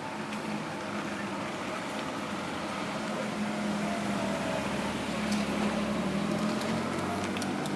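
A steady low mechanical hum whose higher tone dips slightly and then rises slowly again, with a few faint clicks.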